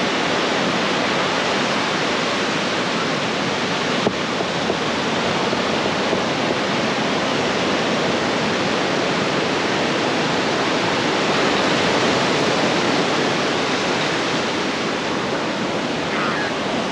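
Small surf waves breaking and washing up a sandy beach, a steady rushing noise with no letup, with one faint click about four seconds in.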